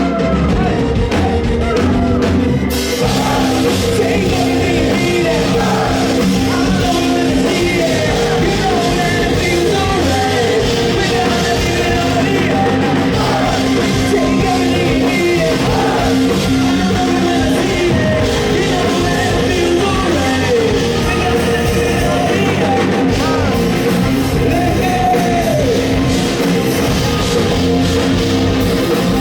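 Live rock band playing held chords while the audience sings the chorus along with it, many voices together.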